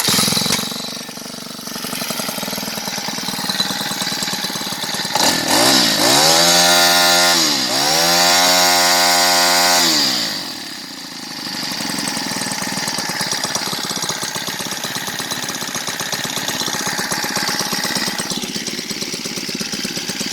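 Small Honda GX35 four-stroke engine with a specially modified cam, running on a friction-drive motorized bicycle. It is revved up twice between about 5 and 10 seconds in, its pitch rising and falling each time, then settles back to a steady idle.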